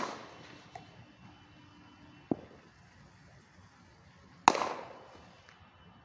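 Cricket bat striking the ball twice, each a sharp crack with a short ringing tail: once right at the start and again about four and a half seconds in. A softer, duller knock comes between them, a little past two seconds.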